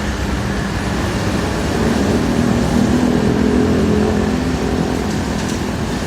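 Komatsu PC78 excavator's diesel engine running steadily, swelling louder and a little higher in pitch for a couple of seconds in the middle before settling back.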